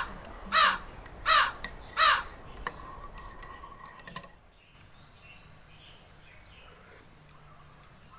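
A crow cawing four times in quick succession, about one caw every two-thirds of a second, over the first two seconds. After the caws come a few faint clinks of a metal spoon stirring in a ceramic mug.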